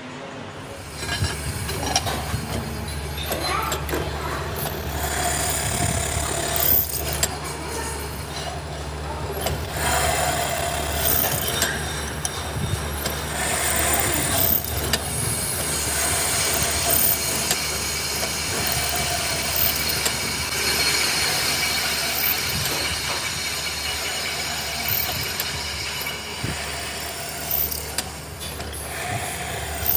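Drill press running, its twist bit boring bolt holes into a metal brake disc hub: a steady motor hum under the scraping noise of the cut, starting about a second in.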